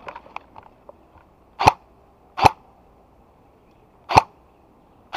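Airsoft gun firing single shots: three sharp cracks spaced about one to two seconds apart, and a fourth starting right at the end. A few light clicks come in the first second.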